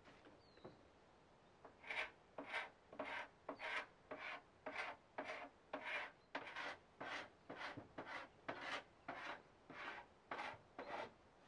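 Paint scraper drawn again and again across the wood of an old window frame: about seventeen even scratchy strokes, roughly two a second, starting about two seconds in.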